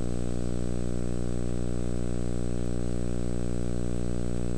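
Steady electrical hum, low and buzzy with many overtones, holding at an even level, with a faint high steady whine above it.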